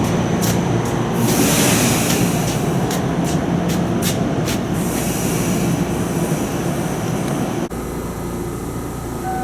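Rail running sound of a Toyama Chiho Railway 20020 series electric train, the former Seibu 10000 series New Red Arrow: a steady rumble with sharp clicks scattered through it and a brief hiss about a second and a half in. About eight seconds in, the sound drops abruptly to a quieter, even hum.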